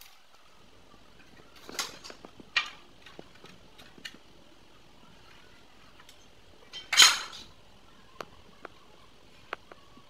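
Hard objects knocking, scraping and clinking. There are two short scrapes about two seconds in, a louder knock and scrape about seven seconds in, and scattered light clicks in between.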